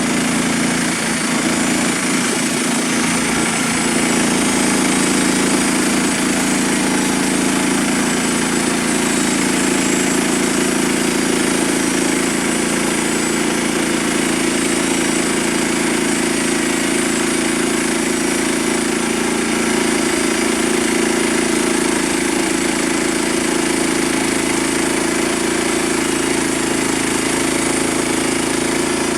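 Frontier OS27 portable bandsaw sawmill's gasoline engine running steadily and loudly.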